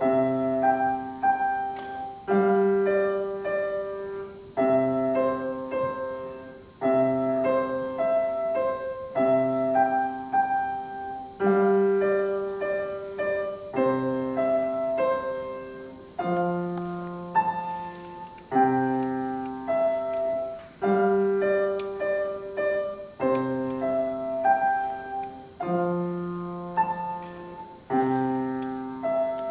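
Solo piano playing a march-like piece: bass notes and chords struck in short phrases that start about every two seconds, each note fading after it is struck.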